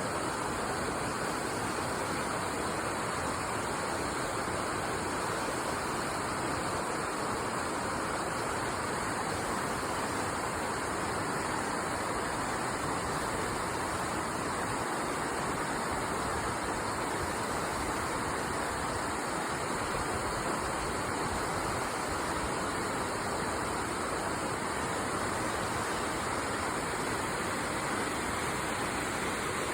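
River water babbling, a steady, unbroken rush of flowing water.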